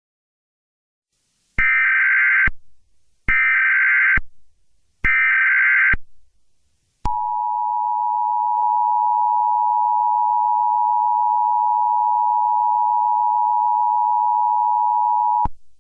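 Emergency Alert System tones: three short bursts of shrill digital data chirps (the SAME header), then the steady two-tone attention signal held for about eight seconds before cutting off suddenly. Together they announce the start of an emergency alert message.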